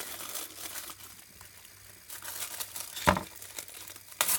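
Thin plastic separator film and foil electrode layers of a cut-open lithium-polymer pouch cell crinkling as they are unfolded by hand. There is a louder, sharp crackle about three seconds in and another just before the end.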